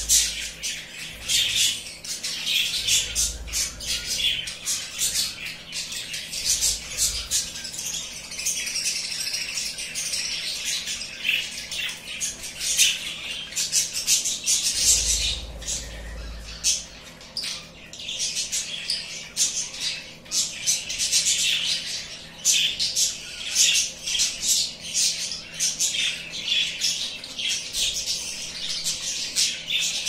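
Caged cockatiel and budgerigar chattering, with rapid high chirps and squawks almost without pause.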